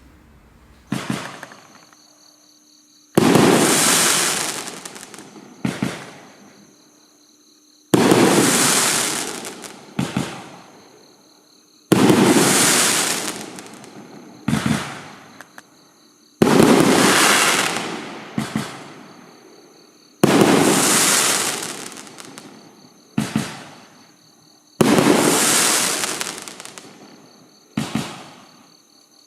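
A 12-shot 500-gram fireworks cake firing shot after shot, about one every four seconds. Each shot is a short sharp launch report, followed about two seconds later by a loud break in the air that fades over a few seconds.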